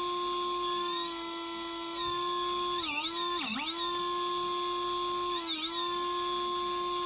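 Emax PM1806 2300Kv brushless outrunner motor spinning unloaded at full throttle with no propeller: a steady high-pitched electric whine with overtones. Its pitch dips briefly a few times, around three and five and a half seconds in, and settles back each time.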